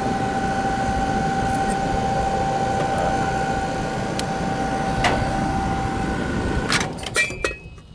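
Outdoor air-conditioner condenser unit running, a steady hum from the compressor and condenser fan motor with a steady whine over it. The fan motor is over-amping, drawing more than its rated current as it heats up: a motor on its way out. Near the end a few sharp clicks come and the running sound drops away.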